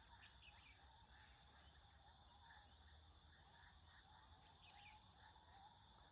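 Near silence: a faint, steady high insect drone with scattered soft bird chirps.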